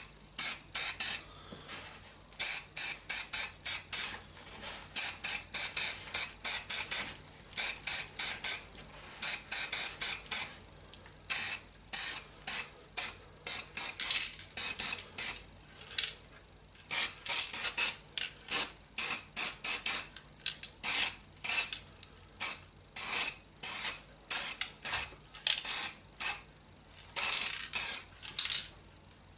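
Aerosol can of spray primer being sprayed in many short bursts, quick hisses at about four or five a second in clusters, with brief pauses between the clusters.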